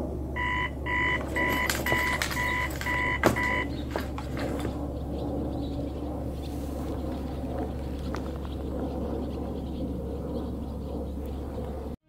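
Electronic beeper sounding about seven evenly spaced beeps, roughly two a second, then stopping, over a steady low hum with a few scattered clicks.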